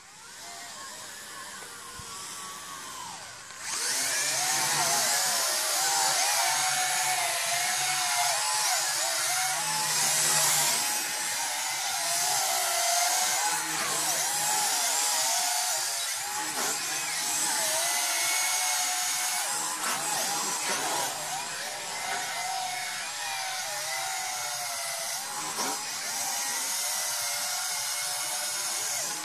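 Small quadcopter drone's electric motors and propellers whining, the pitch wavering up and down as the throttle changes. Faint at first and slowly growing, then much louder from about four seconds in.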